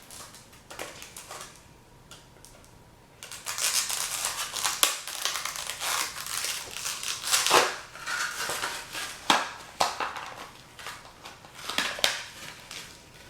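Plastic tackle packaging crinkling and crackling as it is handled and pulled at, with many sharp clicks, starting about three seconds in.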